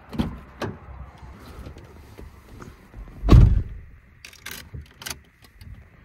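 A Toyota iQ's driver door: a couple of knocks from the handle and door near the start, then one heavy thump as the door shuts about three seconds in. A few light clicks and key jingles follow as the key goes to the ignition.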